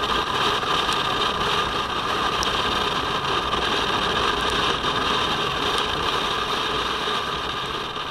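Riding a Kawasaki Versys-X 250 on a rain-wet road: steady wind rush and engine hum with tyre hiss from the wet tarmac, and a few faint ticks. The sound eases slightly near the end.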